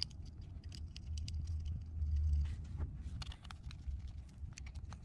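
Light scattered clicks and ticks of a Phillips screwdriver and small screws working against a plastic oil separator can and its mounting bracket, over a low rumble that swells briefly about two seconds in.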